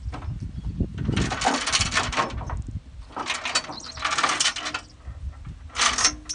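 Steel tie-down chain rattling and clinking against the trailer and machine in several bursts as it is pulled and handled to chain down a loaded skidder.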